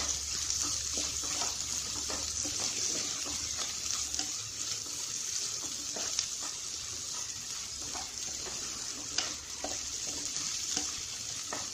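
Chopped shallots, ginger, garlic, green chillies and curry leaves sizzling steadily in hot coconut oil in a clay pot, while a wooden spatula stirs them, scraping and tapping against the pot now and then.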